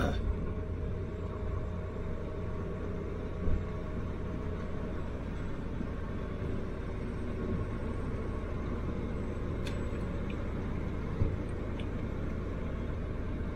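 Steady in-cab engine and road rumble from a Ford F-250 Super Duty pickup with the 6.7 L Power Stroke diesel V8, driving slowly. A couple of short thumps, the louder one about three and a half seconds in.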